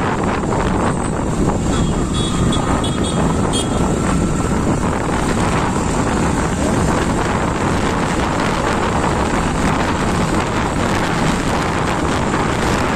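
Wind rushing over the microphone of a moving motorcycle, with the bike's running and road noise underneath; steady and loud.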